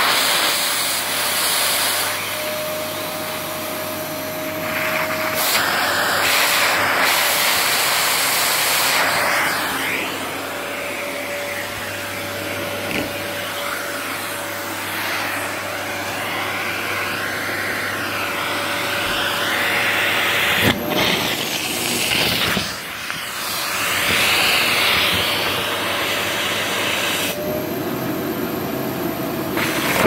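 Vacuum cleaner running, its hose nozzle sucking up bread and food off a tile floor. The rush of suction and its whine change abruptly several times, as food blocks and clears the nozzle.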